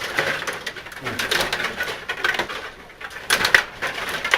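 Rod hockey game in play: the rods rattle and clack on the table and the puck clicks against the players and boards, with a couple of sharper clacks near the end.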